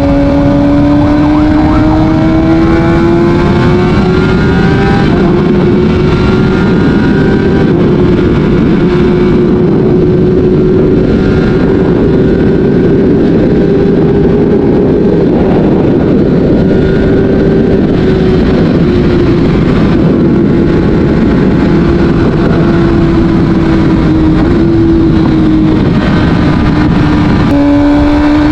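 Kawasaki Ninja ZX-6R inline-four engine through an Akrapovic exhaust, heard from the moving bike. The engine note climbs over the first few seconds, holds steady at high revs for a long stretch, then sinks slowly; near the end it breaks briefly and climbs again. Road and wind rush runs underneath.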